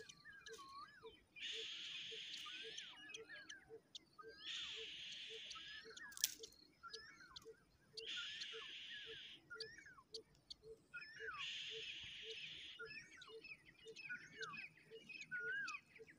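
Outdoor nest ambience: an insect buzz lasting about a second and a half comes back every three seconds or so, over many short whistled bird calls that rise and fall, with a soft steady ticking about twice a second underneath.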